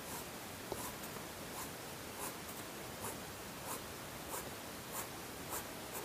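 Marker pen tip scratching across paper in short, regular strokes while shading a diagram with diagonal hatch lines, about ten faint strokes at roughly one and a half a second.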